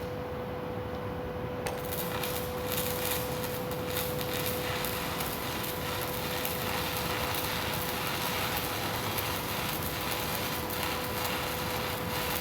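Electric arc welding crackling and sizzling, starting about two seconds in and stopping near the end, over a steady hum.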